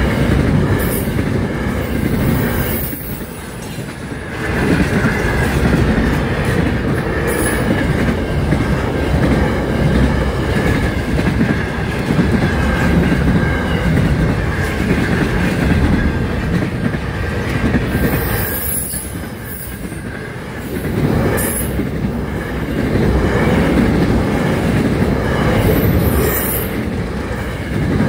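Double-stacked container freight train rolling past at close range: a steady, loud rumble of wagons and wheels on the rails, with sharp clicks from the wheels and a faint steady high squeal. It eases for a moment about three seconds in and again around nineteen seconds in.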